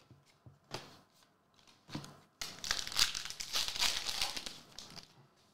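Foil trading-card pack being torn open and its wrapper crinkled by hand: a couple of light clicks of card handling, then a dense crinkling that starts about halfway through and lasts a little over two seconds.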